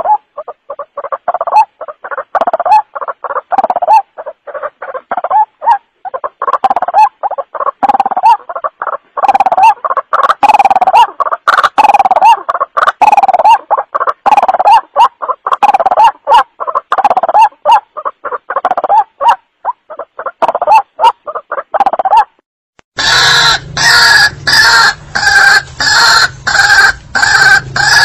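White-breasted waterhen (ruak-ruak) calls played as a bird-hunting lure recording: a loud, fast series of repeated croaking calls. Just after the midpoint of the last third the calls stop for about a second, and a harsher, distorted recording of rhythmic calls with a low hum under it takes over.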